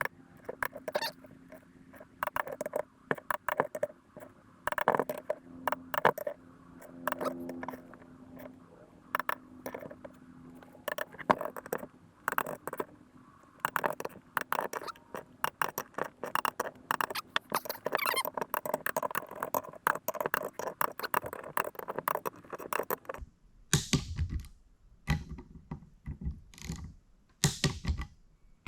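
Click-type torque wrench set to 20 foot-pounds, ratcheting in quick irregular clicks as bolts are run down and torqued. Near the end come a handful of louder, separate clicks.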